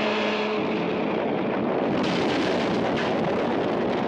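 Film sound of a car exploding into a fireball: a dense, continuous roar of blast and flames that swells about two seconds in, with background music fading out at the start.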